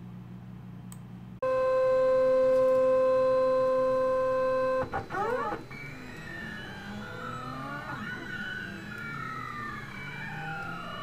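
Delta 3D printer's stepper motors running: a loud steady whine for about three seconds, then, from about five seconds in, quieter whines that rise and fall and cross one another as the print head moves.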